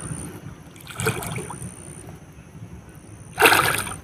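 Pond water sloshing softly around a man standing in it, then a louder splash near the end as he ducks his whole body under the water.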